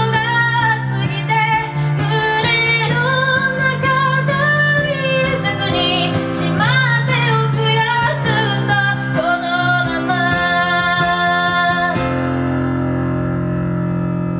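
A woman singing with her own piano accompaniment. About twelve seconds in the voice stops and a final piano chord rings on.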